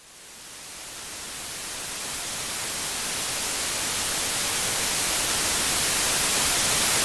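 Static hiss, like a detuned TV, that fades in from silence and grows steadily louder. It is an edited-in white-noise effect.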